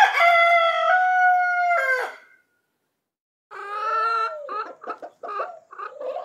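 A rooster crowing once, a long call that steps up in pitch midway and falls off at the end. After a second or so of silence, a chicken clucks in a string of short calls.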